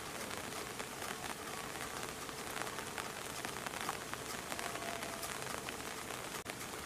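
Steady rain falling, with many small drops ticking on nearby surfaces.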